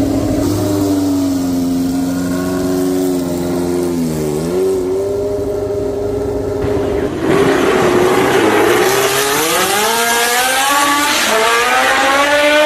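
Classic 1970s McLaren Formula 1 car's Cosworth DFV V8 running at low revs with a brief dip in pitch. It then turns suddenly louder and accelerates hard, its pitch climbing steeply with one upshift near the end.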